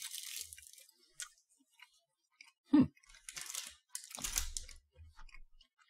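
A person eating a small white-chocolate candy: soft breaths through the nose, a short "mm" about three seconds in, and faint clicks of chewing.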